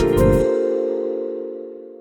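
Background music coming to an end: the beat stops about half a second in and a held chord fades away.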